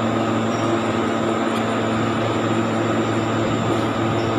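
INVT HT33120 three-phase UPS running: a steady rush of cooling fans with a constant electrical hum underneath, unchanging throughout.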